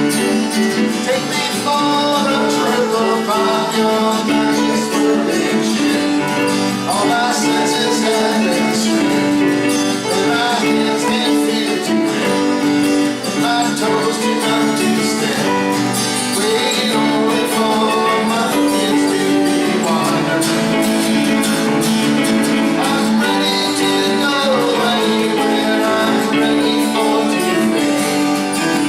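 A band playing, led by guitars, with sustained chords and a steady pulse.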